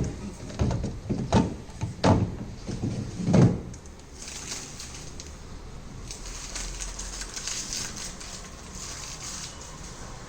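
Several knocks and thumps over the first three and a half seconds, then a steady rustling hiss.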